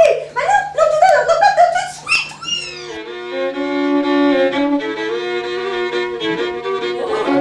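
Fiddle playing slow, long held notes that step from one pitch to the next, starting about three seconds in. Before that comes a short run of quick, sliding, yelp-like sounds.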